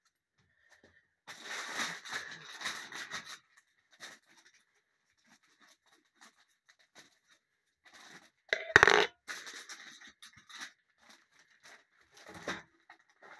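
Foil pouch of dry cat food crinkling and tearing in bursts as it is handled and pulled open, loudest about nine seconds in.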